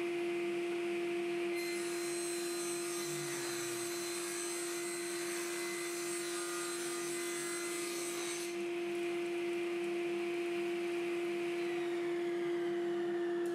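Axminster AW254TS bench table saw's induction motor running with a steady hum, its blade ripping a strip off a plywood board from about a second and a half in until about eight seconds in, then spinning free.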